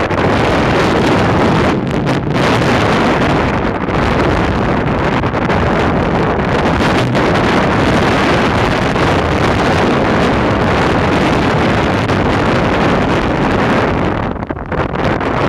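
Strong wind buffeting the microphone, mixed with sea water rushing and splashing along the hull of a cargo barge under way in choppy water. It is a loud, steady rush with a brief lull near the end.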